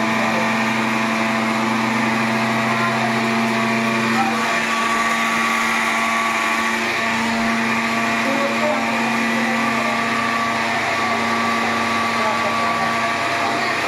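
Electric mixer grinder (mixie) running steadily, its motor humming as it grinds spice masala; the lowest part of the hum drops away about four seconds in.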